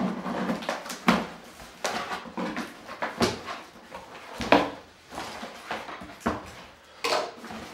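Tape seal on a cardboard box being ripped and the flaps pulled open: about half a dozen short rasping tears and scrapes, with cardboard rustling between them.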